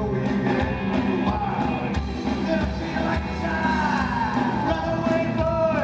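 Live rockabilly trio playing: hollow-body electric guitar, slapped upright double bass and a standup drum kit, with vocals. About three and a half seconds in a long note slides down in pitch, then a note is held near the end.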